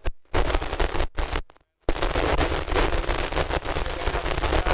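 Audience clapping, a dense crackle of many hands. It cuts out abruptly a few times in the first two seconds, then runs on steadily.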